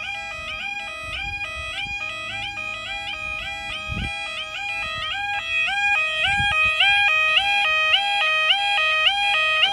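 Level crossing audible warning alarm sounding: an electronic two-tone yodel repeating steadily, each note gliding up into the next, warning that the barriers are coming down for an approaching train.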